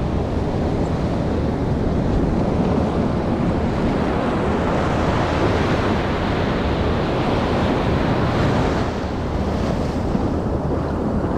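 Ocean surf washing in the shallows, with wind rumbling and buffeting on the microphone.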